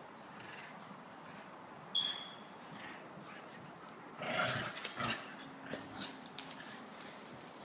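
Cane Corso and Shih Tzu play-fighting: a brief high squeal about two seconds in, then a louder growling outburst about four seconds in, with short scuffling clicks after it.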